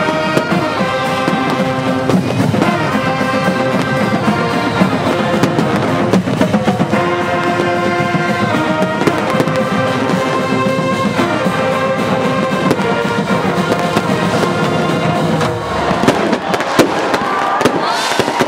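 College marching band's brass section playing loud held chords, with fireworks bangs and crackles going off throughout. The band stops about sixteen seconds in, leaving the fireworks popping and whistling.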